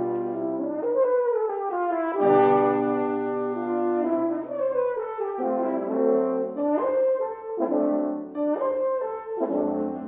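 Four French horns playing in harmony with piano. Held chords and falling lines in the first half give way to a series of short, separated chords in the second half.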